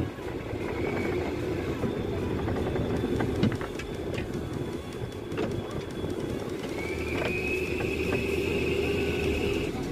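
Fishing boat under way: its engine runs with a steady rumble, mixed with the wash of the sea against the hull. There are a few knocks, the loudest about three and a half seconds in, and a thin steady high whine that comes in a little after halfway and lasts about three seconds.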